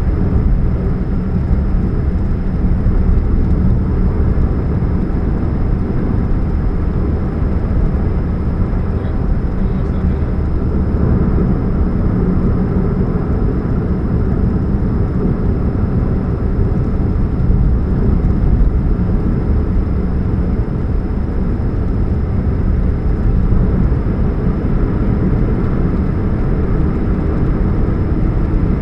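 2013 Chevrolet Spark running with a steady low hum and rumble. The hum is a sign of an exhaust leak at the catalytic converter.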